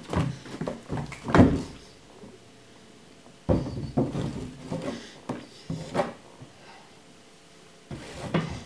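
Paws of a tabby kitten thumping and scrabbling on a wooden floor as it pounces at a hand patting the floorboards. Clusters of knocks come in three bursts: the loudest thump about a second and a half in, another flurry from about three and a half to six seconds, and more near the end, with quiet gaps between.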